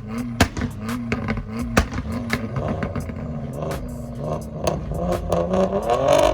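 A modified car's engine revving with a string of sharp exhaust pops and cracks. The engine note climbs in pitch over the last two seconds.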